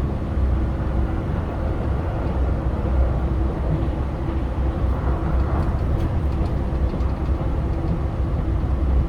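JR Shikoku 2000 series diesel railcar running at speed, heard from inside: a steady low rumble of the diesel engine and wheels on the rails, with a constant hum.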